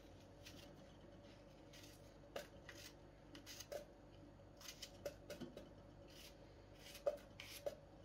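Knife slicing an unpeeled apple: faint, irregular cuts and taps on the cutting board, over a faint steady hum.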